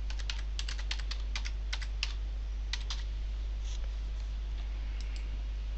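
Computer keyboard keys clicking in a quick run of keystrokes as a password is typed, lasting about three seconds, followed by a few fainter, scattered clicks.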